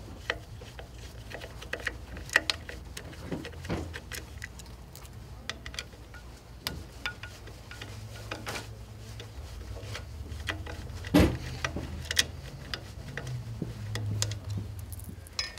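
Screwdriver backing screws out of the side plate of a long-arm quilting machine: scattered small clicks, ticks and scrapes of the tip in the screw heads and of the loosening screws, over a low steady hum.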